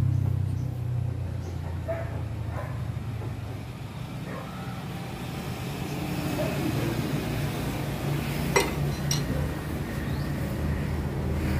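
A steady low machine hum with light metal clinks as parts are fitted by hand onto a crankshaft's front end in a lathe chuck; two sharp metallic clicks come close together a little past halfway.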